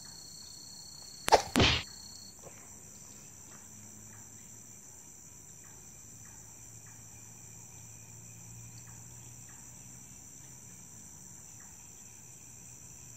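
Night insects, crickets among them, chirring steadily in a high-pitched chorus, with two sharp knocks in quick succession about a second and a half in.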